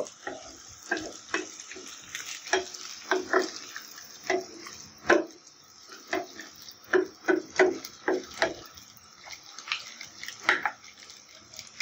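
Wooden spoon scraping and knocking in a nonstick frying pan, stirring egg, potato and onion frying in oil, in irregular strokes a few times a second over a steady sizzle.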